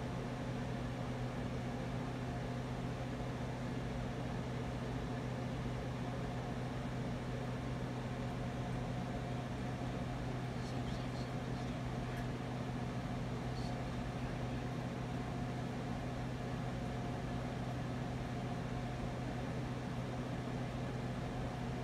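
A steady low hum under an even hiss, with a few faint high ticks about halfway through.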